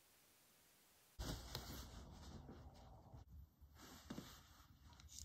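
Near silence for about a second, then faint clicks and handling noises from hands working at a watchmaker's lathe over a low steady hum.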